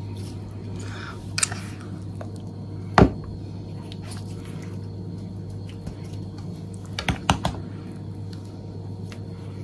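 Metal spoon clicking against the marinade bowl and board while a chunky oil-and-spice marinade is spooned onto scored raw pork belly: a few sharp clicks, the loudest about three seconds in and a quick pair about seven seconds in, over a steady low hum.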